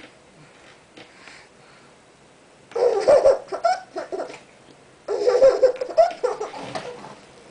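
Baby laughing hard in two bursts, the first about three seconds in and the second about five seconds in, with a quiet pause before them.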